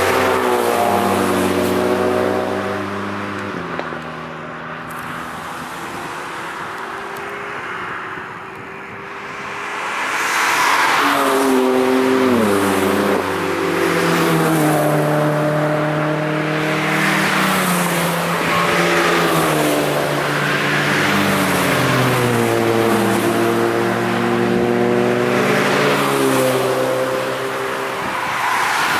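Several road cars driving hard through a racetrack corner one after another, engines revving up through the gears with each upshift dropping the note, over tyre noise. There is a quieter spell a few seconds in before the next cars arrive.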